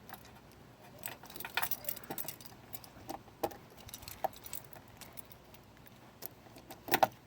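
A key being worked in and out of a lock cylinder, with scattered light metallic clicks and jingles. The cylinder had seized from old oil and dirt and has been flushed with penetrating oil and brake cleaner, and the key is run through it to loosen the grime. The loudest clicks come near the end.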